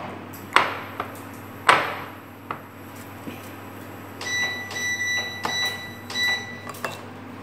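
Wooden chopsticks knocking against a ceramic plate as a chicken drumstick is turned in dry flour, two sharp knocks in the first two seconds and a few lighter taps. In the second half a high steady tone sounds on and off for about three seconds.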